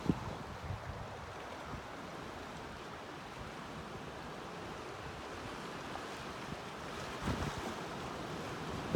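Calm Pacific Ocean surf washing steadily, with brief low thumps of wind on the microphone just after the start and again near the end.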